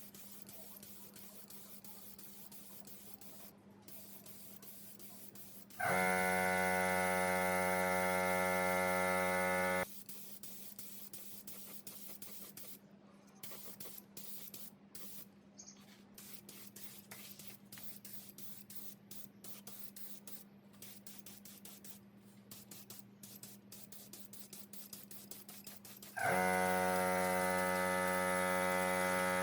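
A loud mains-frequency electrical buzz, switched on twice and held for about four seconds each time, starting and stopping abruptly at a steady pitch. Between the two buzzes there is faint hiss with small clicks and scrapes.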